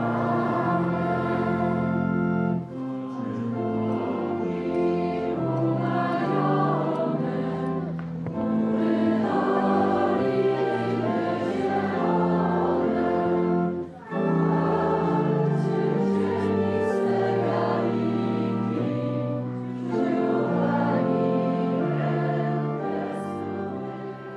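Church congregation singing a hymn together, in long phrases of about six seconds with short pauses between them, fading near the end.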